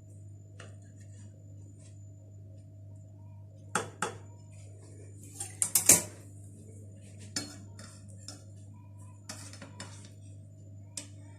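A metal knife clinking and tapping against a dish as a cake is cut into pieces: scattered sharp clinks, loudest in a quick cluster about six seconds in.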